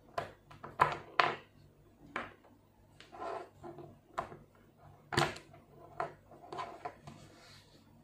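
5 mm neodymium magnetic balls clicking and clacking together as they are handled and snapped into place, in irregular clicks. The loudest snaps come about one second in and about five seconds in.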